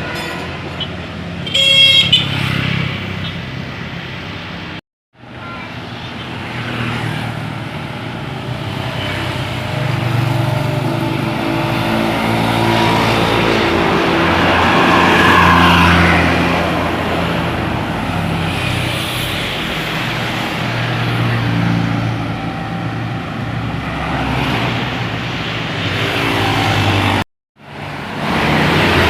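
Large diesel tour buses running along the road with traffic noise, and a short, loud, high-pitched horn toot about two seconds in. The sound cuts out completely twice for a moment.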